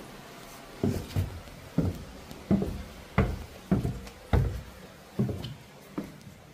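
Footsteps at a walking pace, about nine steps, each a dull thud.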